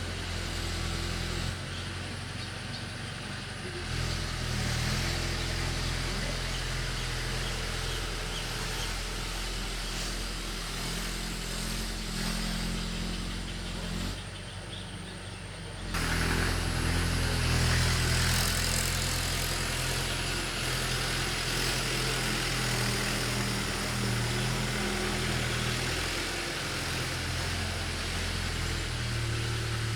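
Engine of a ploughing machine running steadily as it works the field, its pitch shifting up and down. It drops back briefly about halfway through, then picks up again louder.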